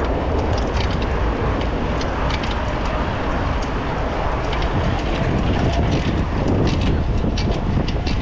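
Steady rush of wind on the microphone and tyre-on-road noise from a bicycle being ridden on a street, with scattered small clicks and rattles throughout.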